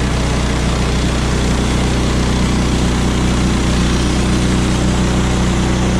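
A portable sawmill's small gas engine running steadily.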